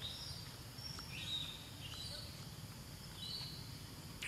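Outdoor ambience: a steady low rumble with a few short, high chirps scattered through it.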